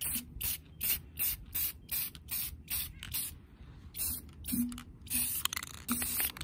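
Aerosol can of clear matte enamel spraying in short, quick spurts, about four a second, then a few longer hisses in the second half.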